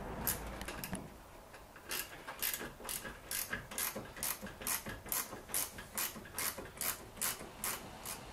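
Ratchet spanner working a bolt, clicking in a steady rhythm of about two to three clicks a second, after a few knocks of handling in the first second.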